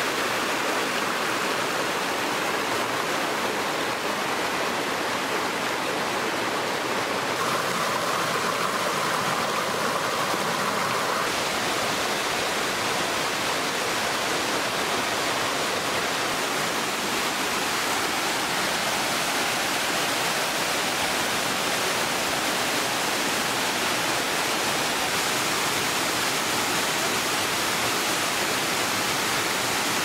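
Mountain stream rushing over rocks and small cascades: a steady water noise, briefly brighter in tone between about seven and eleven seconds in.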